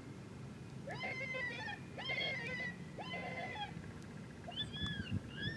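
Predator call playing animal distress cries to draw coyotes: three pitched cries about a second apart, each about half a second long, then higher, thinner calls that rise and fall near the end.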